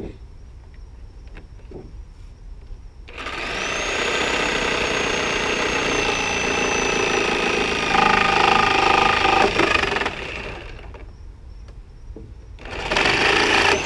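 Skil 7.5-amp corded reciprocating saw with a Milwaukee nail-embedded wood-cutting blade, sawing through the nails that hold a pallet board. It starts about three seconds in with a rising whine, runs about seven seconds and gets louder near the end of the cut, then stops. A second short burst of sawing comes near the end, after a few light knocks of boards being handled at the start.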